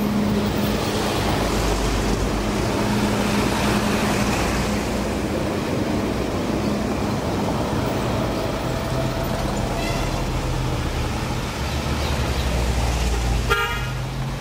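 A street tram passing close by on street-running track, with a steady low hum over the noise of its running. A horn toots briefly about ten seconds in and again near the end.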